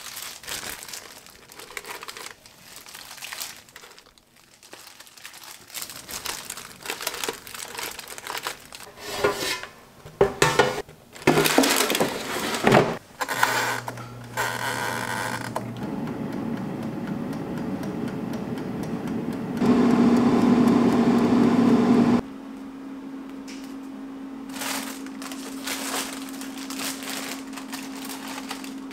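Disposable plastic gloves and parchment paper crinkling and rustling as raw pork slices are laid in an air fryer basket. The air fryer's control dial is then turned, and the fryer runs with a steady whir and hum.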